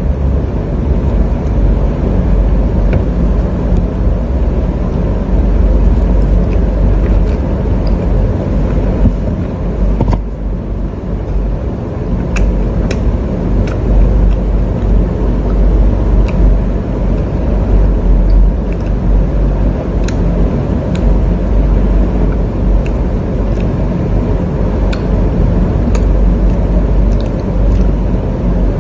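A steady low rumble throughout, with scattered faint clicks and smacks of a person chewing food.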